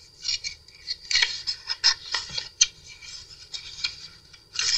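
Paper pages of a handmade junk journal rustling and crinkling as hands lift and turn them, coming in irregular bursts with a few sharp clicks.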